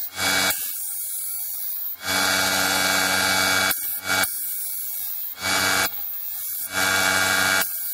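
Hudy tire truer's electric motor running steadily, spinning a foam RC tyre, while a hand file is pressed to the tyre's edge about four times. Each contact brings a louder grinding noise, the longest lasting nearly two seconds. This is the file lightly truing the glued sidewall edge of the foam tyre.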